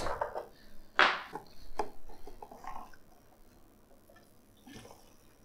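Petrol being poured from a plastic jerrycan into a pocket bike's small fuel tank, with a sharp knock about a second in as the can is handled; the sounds die away after about three seconds.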